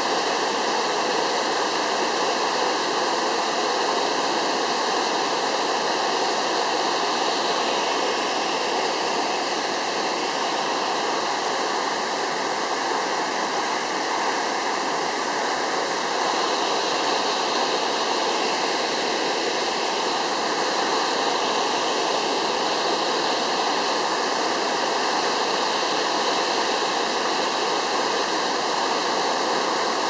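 Waterfall pouring over rock: a steady, unbroken rushing of falling water.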